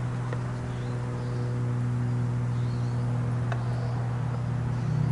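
A steady low mechanical hum, with a couple of faint clicks from metal tools being handled on a wooden table.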